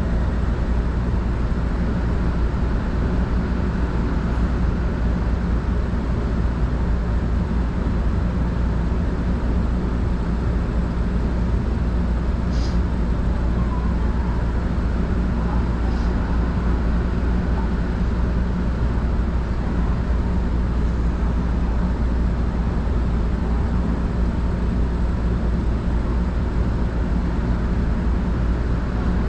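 Keio Sagamihara Line commuter train running, heard from inside the car: a steady, even rumble of wheels and running gear, with two faint ticks about halfway through.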